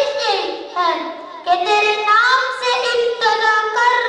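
Boys singing a naat, an Urdu devotional song, into microphones: long held notes with sliding, ornamented turns, in short phrases with brief breaks between them.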